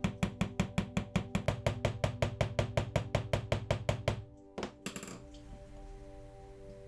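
Rapid, even tapping, about six taps a second, over steady background music; the tapping stops about four seconds in and is followed by a couple of single knocks.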